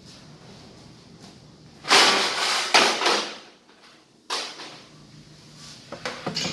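Metal tools clattering in a metal toolbox as it is rummaged through: a loud rattle about two seconds in, a sharp clank a little past four seconds, then a few light clicks near the end as a drill is picked up.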